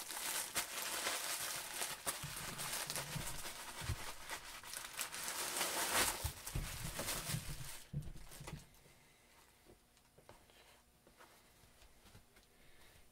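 Plastic shipping mailer and wrapping crinkling and rustling as they are handled and a cap is pulled out, with many sharp crackles. The crinkling stops about eight and a half seconds in, leaving only faint handling sounds.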